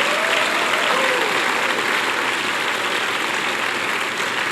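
Congregation applauding steadily, with a few voices calling out in the first second or so.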